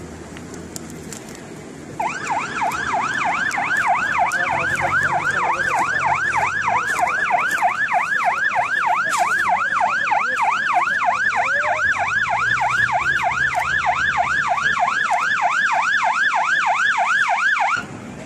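A siren sounding in fast yelp mode: a rapid, evenly repeating rise-and-fall wail. It cuts in about two seconds in and stops abruptly just before the end.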